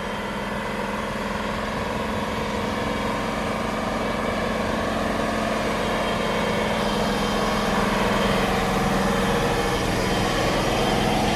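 Truck engine running steadily, a low hum that slowly grows louder.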